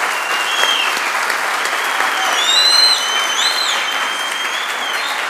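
Audience applauding, with high whistles over it: a short one about half a second in, then a longer wavering one from about two seconds in until near the end.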